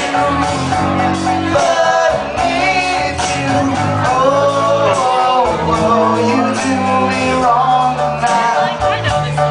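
Live band music: a male voice singing over piano and drums, with a sustained low accompaniment.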